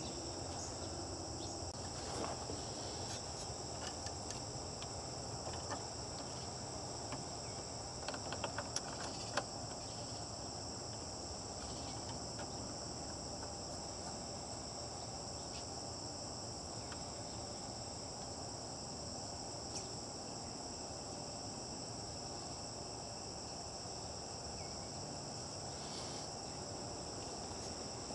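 Steady high-pitched chorus of insects, likely crickets, with a few sharp clicks about eight to nine seconds in.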